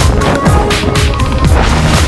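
Background music with a steady beat and deep bass hits.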